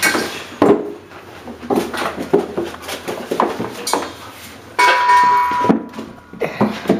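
Puppies moving about in a plastic tub, giving irregular clattering knocks and bumps. About five seconds in, a puppy gives a short, high, steady whine lasting just under a second.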